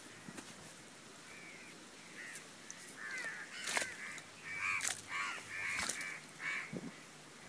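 A run of about ten short, harsh animal calls over a few seconds, with a few sharp knocks from digging into the mud of a rat burrow with a hoe and bare hands.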